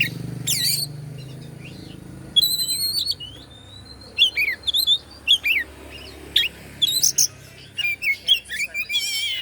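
Oriental magpie-robin (kacer) singing a varied string of quick sweeping whistles and chirps, with one longer held whistle a few seconds in. A faint low hum sits under the first two seconds.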